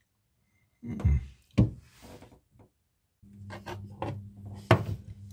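A few sharp knocks and scrapes of handling among the pipes and fittings behind a bath panel. About three seconds in, a steady low hum sets in under further small knocks and one loud click.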